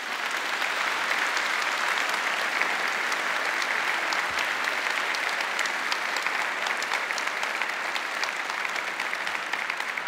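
A large audience applauding in a hall. The clapping swells within the first second, holds steady, and eases off slightly near the end.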